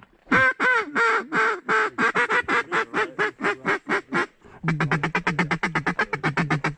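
Duck call blown by a hunter: a long run of quacks that starts high and drops in pitch, then, after a short break about four and a half seconds in, a fast chattering run of notes about ten a second.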